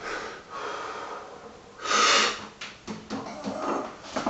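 A man breathing hard from the exertion of heavy one-hand grip lifts, with one loud, forceful exhale about two seconds in and smaller puffs of breath around it.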